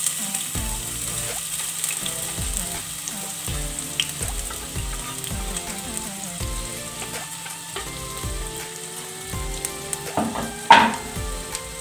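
Diced red onion sizzling in hot oil in an aluminium pot, with a sharp knock near the end.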